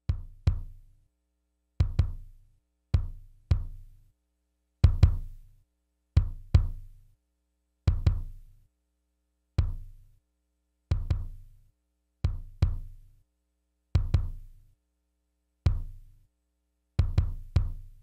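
Solo kick drum playing a sparse, syncopated pattern of single and paired hits, each a sharp attack with a low boom that dies away, with silence between the hits. The kick is being run through the UAD Teletronix LA-2A tube compressor plugin.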